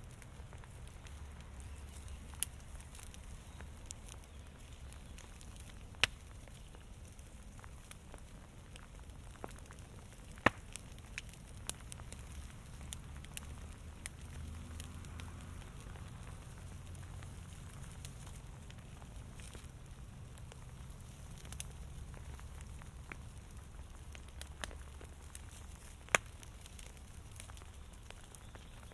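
A fire crackling steadily, with a handful of sharp, loud pops standing out over a low rumble.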